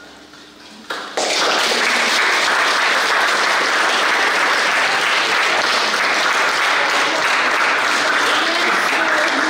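Audience applauding, breaking out suddenly about a second in and going on steadily at full strength.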